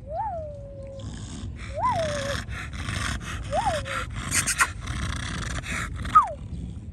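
Dog whining four times, each a short whimper that rises and then falls in pitch, over a steady hiss that fills most of the stretch.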